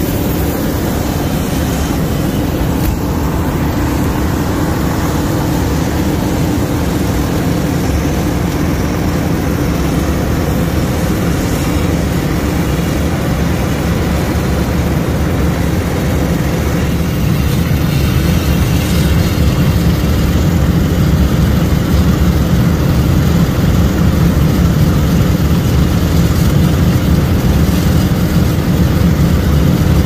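Heavy diesel farm machinery running at working speed during harvest, a steady low engine drone that grows a little louder about halfway through.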